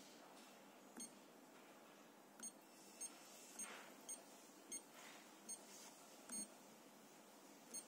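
About nine short, high-pitched electronic key beeps from an ISE electrolyte analyzer's touchscreen, one for each tap on a menu button or password key, spaced unevenly about half a second to a second apart over faint room hiss.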